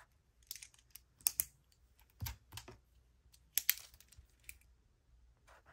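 Scattered sharp clicks and light knocks of Zebra Clickart retractable markers being handled: a pen clicked and set down on the desk, another picked up and clicked. A duller knock about two seconds in.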